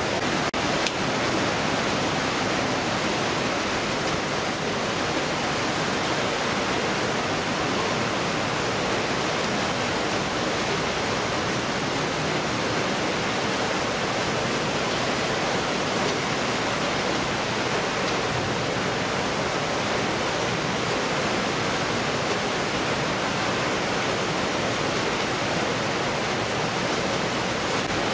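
Steady, even noise of a fish-processing line running aboard a commercial fishing boat: conveyor machinery and water, with a thin high whine running through it.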